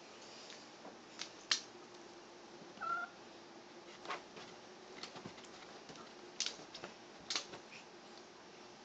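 A cat gives one short, high meow about three seconds in, among scattered sharp clicks and rustles as it plays on a blanket.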